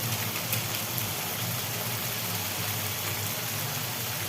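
Onion-tomato masala frying in a pan, a steady hissing sizzle over a steady low hum.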